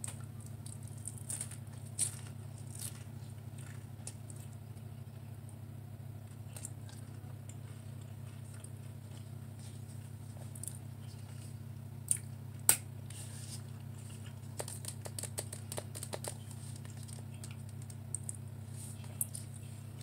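A person chewing a mouthful of instant ramen noodles with Cheez-It crackers mixed in: scattered soft crunches and mouth clicks, a couple of them sharper, with a cluster about fifteen seconds in. A steady low hum runs underneath.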